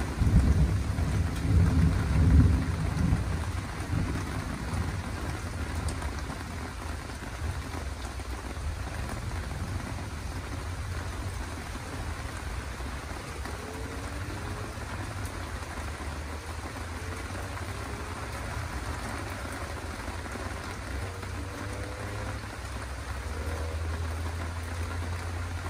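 Thunder rumbling loudly in the first few seconds and dying away, leaving steady rain falling. A low rumble comes back near the end.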